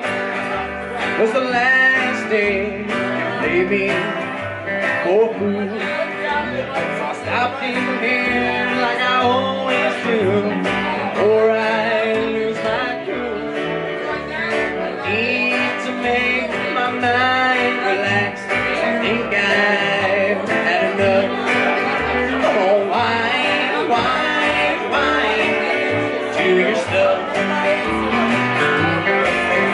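A small country band playing live: electric guitar, upright double bass and acoustic guitar.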